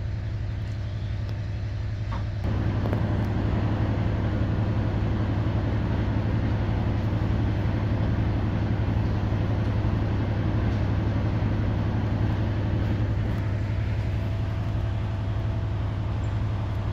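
Diesel-hauled heritage passenger train running, heard from an open carriage window: a steady low rumble of the locomotive and the wheels on the track, with air rushing past. It gets louder about two seconds in.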